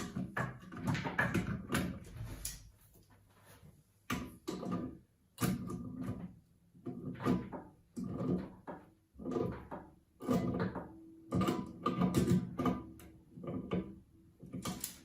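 Plastic locknut and washer being screwed up under a toilet cistern to clamp a new fill valve's seal: an irregular series of short scraping and knocking strokes of plastic on plastic, turn by turn, with short pauses between.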